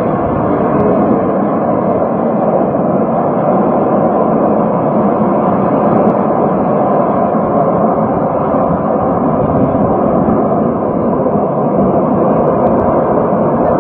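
Steady, loud rushing noise of an oil well blowout fire: hydrocarbons escaping uncontrolled from the well and burning around the drilling rig's derrick.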